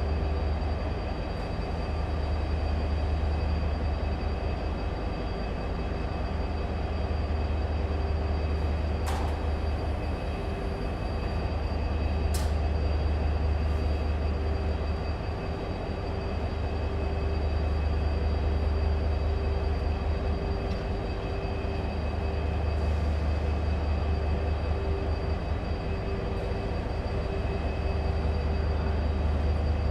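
A train running close by at a station: a steady deep engine rumble with a constant whine on top, swelling and easing every few seconds. Two sharp clicks come about nine and twelve seconds in.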